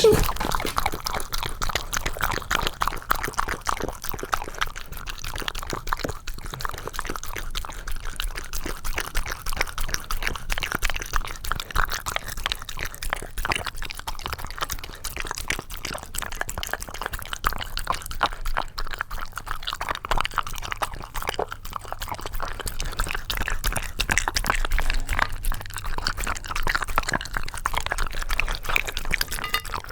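Shiba Inu eagerly licking and lapping thick yogurt from a bowl: a fast, unbroken run of wet smacking clicks.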